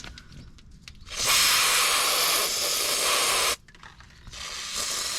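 Aerosol spray cleaner hissing in two long bursts, the first of about two and a half seconds starting a second in and the second starting near the end, used to wash spilled oil off the oil filter flange.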